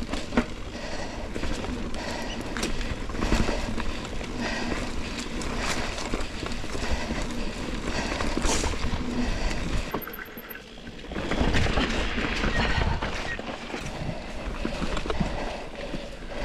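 Mountain bike riding over rough singletrack: tyres crunching over dry leaves, roots and rocks, with many small knocks and rattles from the bike over the bumps. The noise drops briefly about ten seconds in, then comes back louder.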